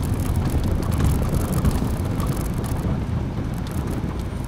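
Steady low rumble of a car moving slowly, engine and tyre noise heard from inside the cabin.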